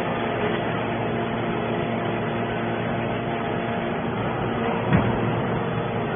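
Hydraulic metal scrap baler running: a steady machine hum with a few held tones, and a single knock about five seconds in.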